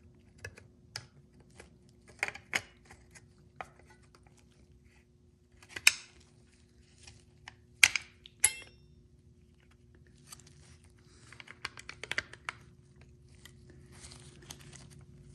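Small clicks and taps of a plastic cover and chrome metal parts being handled and fitted onto a Recaro seat hinge, with two sharper clicks about six and eight seconds in, and a spell of quick light ticking and glove rustling later on.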